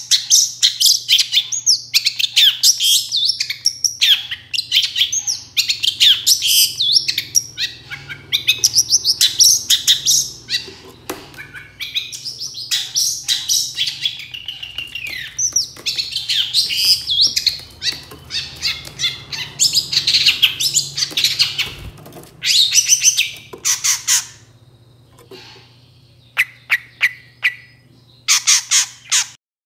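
Long-tailed shrike (cendet) singing a loud, rapid, chattering song of quick high notes and trills, in long runs with short breaks. Over the last few seconds the runs grow shorter and further apart.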